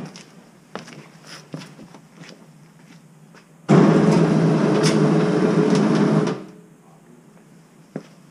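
A power tool runs steadily for about two and a half seconds from a little past the middle, starting and stopping abruptly. Light knocks and clicks of work come before and after it.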